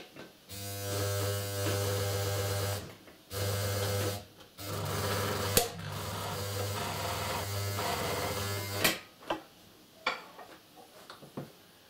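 Kenmore Ultra Stitch 12 sewing machine running under its motor with a steady hum, in three runs with short stops near three and four and a half seconds, and a sharp click partway through the last run. It is test-run just after lubrication, and the owner judges that something is still wrong. It stops about nine seconds in, followed by a few light clicks.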